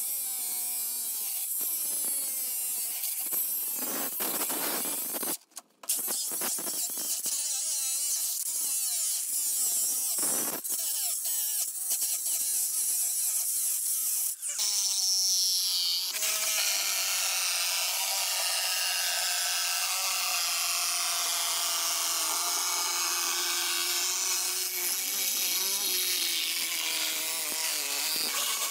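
Cordless angle grinder with a cut-off wheel cutting through the steel shell of a water heater tank, running under load. It cuts out briefly about five seconds in, then starts again, and in the second half runs at a steadier pitch.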